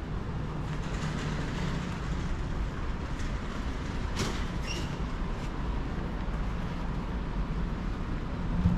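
Steady low rumble of a passing train, with a sharp click and a brief high squeak a little past four seconds in.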